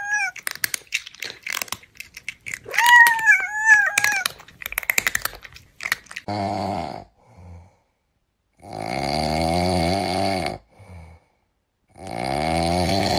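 Meme sound effects: a run of chewing and munching clicks with a short warbling cry in the middle, then, from about six seconds in, three long drawn-out snores separated by short silences.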